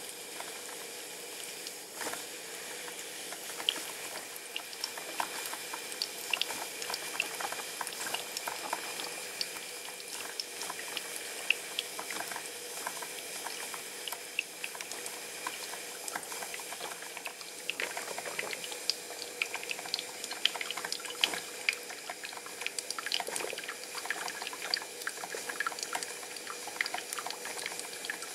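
Electric drip coffee maker brewing: a steady hiss with many small pops and crackles as hot water drips and trickles into the glass carafe.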